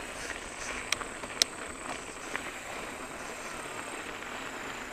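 Mountain bike tyres rolling over a gravel path, a steady noise, with two sharp clicks half a second apart about a second in.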